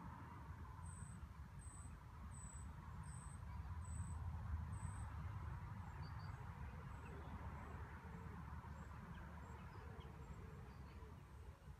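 Quiet outdoor ambience over still water: a faint low rumble with a run of short, very high-pitched chirps about every 0.7 s in the first five seconds, fainter chirps continuing after.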